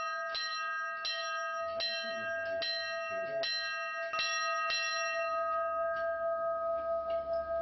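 A single hanging bell rung by its rope, the clapper striking about every three-quarters of a second. The strikes stop about five seconds in and the bell's tone rings on, slowly fading.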